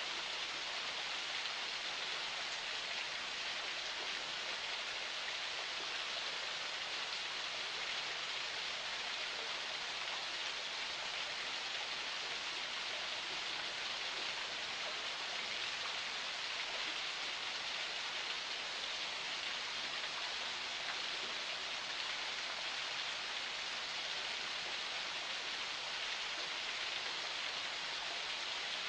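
Forest spring running: a steady, unbroken rush of flowing water that stays even throughout.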